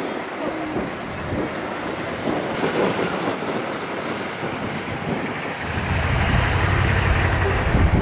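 Street traffic noise, with a heavy vehicle's low engine rumble coming up louder about six seconds in.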